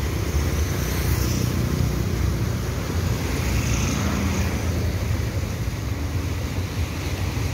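Steady low rumble of road traffic mixed with the even rushing hiss of a swollen, fast-flowing flooded river.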